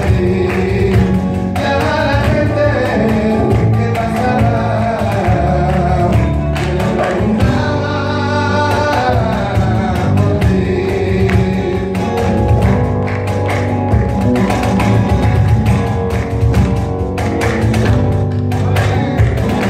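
Live flamenco music: a man singing over flamenco guitar and bass, with sharp percussive strikes on the cajón that grow denser in the second half.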